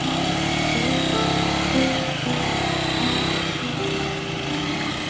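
Race GSR 125 motorcycle's 125 cc engine running steadily as the bike pulls away at low speed.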